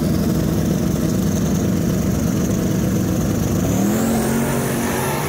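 Two drag cars' engines held at high revs on the starting line with a rough, rapid stutter, then launching about four seconds in, the engine pitch rising steadily as they accelerate away.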